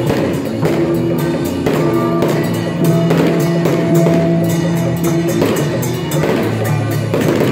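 Loud procession music: drums and rapid percussion strikes over sustained held notes.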